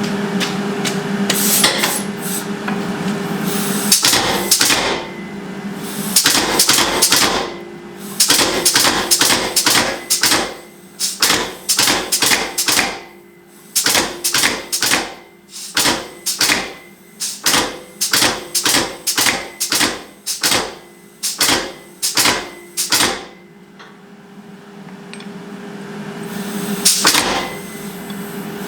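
Hand hammer striking hot steel on an anvil in a long run of sharp blows, roughly one to two a second, in groups with short pauses, as the spine of a kettle hook is drawn out and shaped. A forge runs with a steady hum at the start and again near the end, between the heats.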